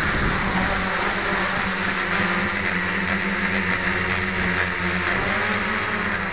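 Octocopter's eight electric motors and propellers whirring steadily, heard close up from a camera mounted on the frame as it lifts off the grass.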